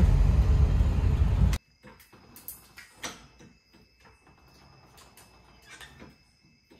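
Ford F-250's 6.0 Powerstroke turbo-diesel with a newly fitted aftermarket intake, heard from inside the cab while driving, running loud and steady before cutting off suddenly about a second and a half in. After that come faint scattered clicks and clanks of a hydraulic floor jack being pumped.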